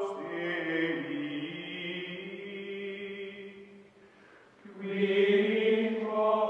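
Background music of sustained chanting voices holding chords. It fades almost away about four seconds in, then comes back strongly with a new held chord.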